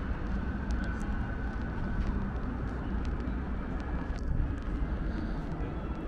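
Steady low rumble of city background noise, with a few faint light clicks.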